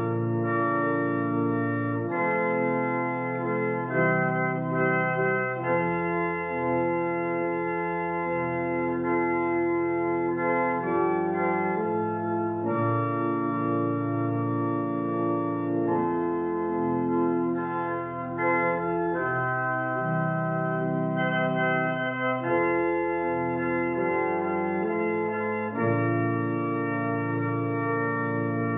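Organ playing a postlude: full sustained chords, moving to a new chord every couple of seconds.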